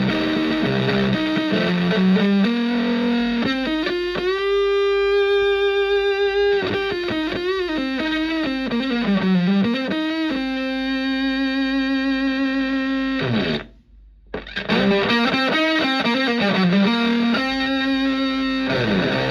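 Stratocaster tuned to drop C played on the neck pickup through a Tone Bender MKI-style fuzz pedal with its attack (Fire) set low, into a Twin Reverb-type amp: a mildly fuzzed riff with two long held notes, bends between them, and a short silence about fourteen seconds in.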